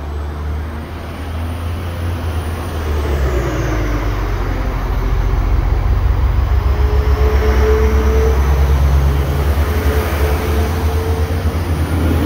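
Class 196 diesel multiple unit pulling out of the platform, its diesel engines running under power. The engine drone grows louder from about three seconds in as the carriages pass close by, with a steady hum in the second half.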